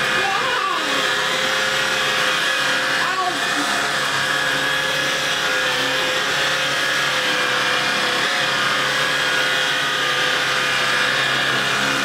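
Shark cordless stick vacuum with a DuoClean floor head running steadily on carpet: a constant motor whine with a held tone.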